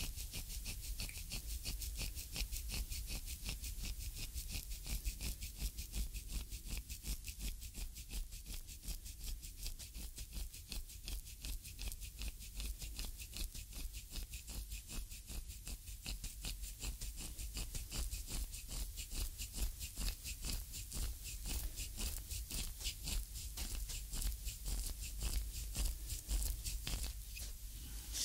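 Wooden reflexology stick rubbing back and forth over an oiled foot sole in quick, even strokes, a rhythmic rasping of stick on skin picked up close on binaural microphones.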